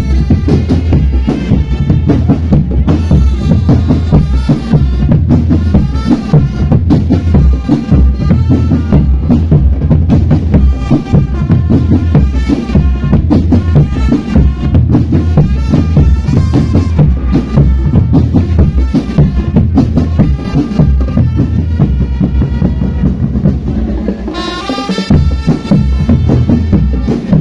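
Drum band music: drums and percussion with bass drum keeping a steady beat under a melody, with a rising sweep near the end.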